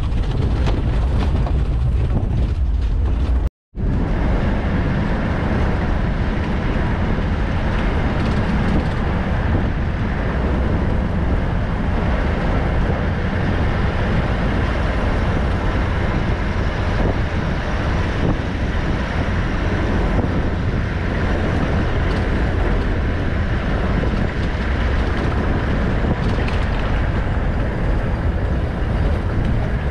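Safari vehicle on the move: steady engine and road rumble. The sound cuts out completely for a moment a few seconds in.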